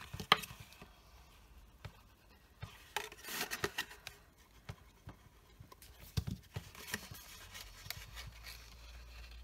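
Designer paper and a small paper box being handled and glued: light rustling and rubbing of the paper, with scattered small clicks and taps of the plastic glue bottle and cap on the table.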